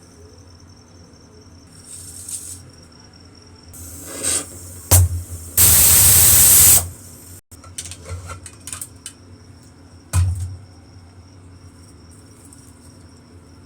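A loud, even hiss lasting a little over a second, about six seconds in, with a knock just before it and another knock about ten seconds in.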